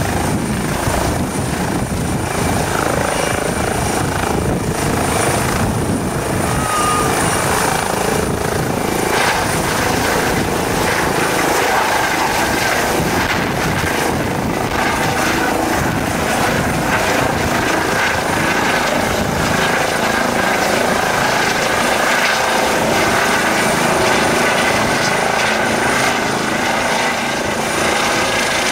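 Eurocopter EC135 air ambulance helicopter running at full power as it lifts off and climbs away: a steady, loud rotor and turbine noise with a held whine.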